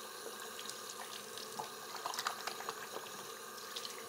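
Water running from a tap into a sink: a steady hiss of flowing water with small splashes and drips.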